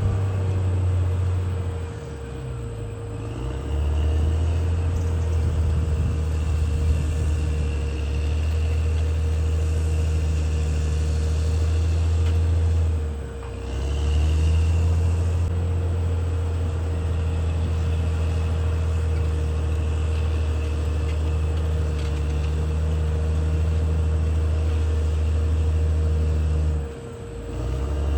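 Caterpillar D6R XL bulldozer's diesel engine running hard with a low drone and a steady whine, easing off briefly three times.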